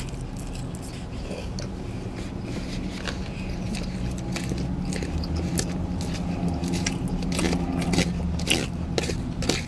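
Close-up chewing of a crisp romaine lettuce salad: many short irregular crunches and wet mouth clicks, over a steady low hum.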